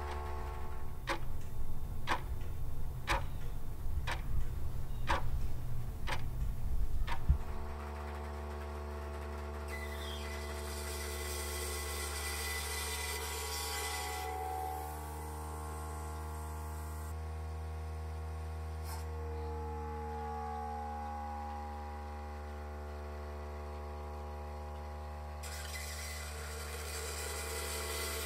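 Water being sucked out of a glass jug through a rigid Yankauer suction tip: a rough rumbling slurp with a tick about once a second, which stops abruptly after about seven seconds. After that a steady hum, with a hiss of suction twice, the second near the end.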